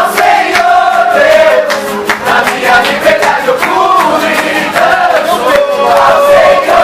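A group of people singing a lively worship song together, with sharp percussive beats throughout.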